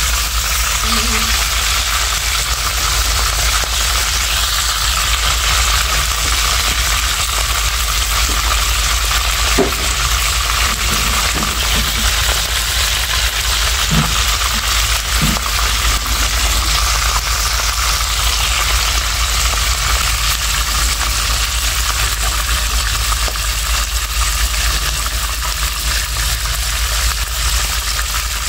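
Fish frying in shallow hot oil in a frying pan: a steady, even sizzle, with a low steady rumble underneath.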